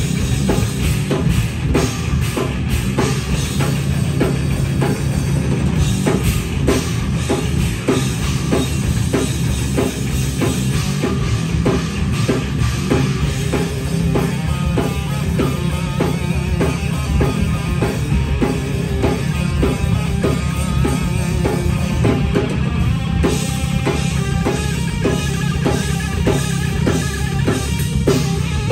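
Live heavy metal band playing: a drum kit with a pounding bass drum, hit in a dense, even rhythm, under distorted electric guitars.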